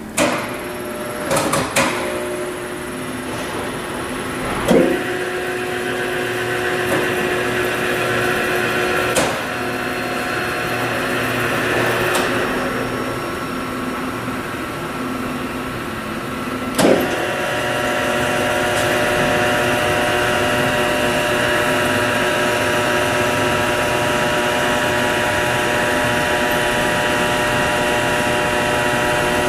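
Electric drive motors and gearing of a P&H WP12 welding positioner running as the table is power-tilted, a steady hum with several whining tones. Several sharp knocks break it, the loudest about 5 and 17 seconds in, after which the running sound grows steadier and a little louder.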